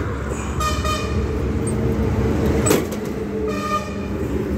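A vehicle horn toots briefly twice, about half a second in and again about three and a half seconds in, over a steady engine running. A sharp click comes near the middle as the metal side panel of the New Holland 3630 tractor's bonnet is unlatched and swung open.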